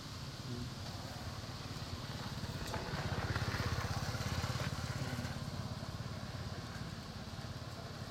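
A vehicle engine running with a rapid low pulse, which grows louder about three seconds in and fades again after about five seconds, as a vehicle passing by would.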